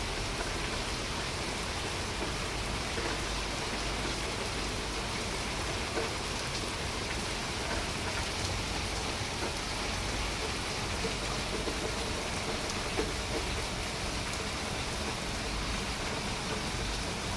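Steady rain falling, a continuous patter with a few louder single drops ticking now and then.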